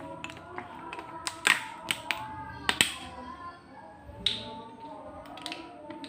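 Sharp plastic clicks and taps as the cap and seal of a coolant bottle are worked open by hand, loudest about a second and a half in, near three seconds and past four seconds, over faint background music or voices.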